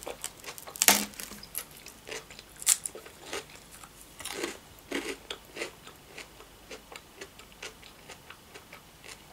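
A person chewing a mouthful of mayonnaise-dressed crab-stick salad with cabbage and cucumber close to the microphone: irregular soft crunches and wet mouth clicks, the loudest about a second in.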